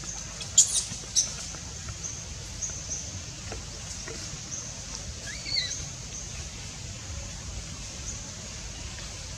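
Outdoor ambience with a steady high buzz of short repeating notes and a low rumble. Two sharp clicks come about half a second and a second in, and one brief high squeak about halfway through.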